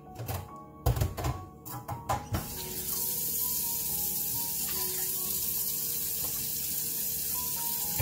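A few clinks and knocks of kitchenware, then water running steadily from a tap, starting about two and a half seconds in.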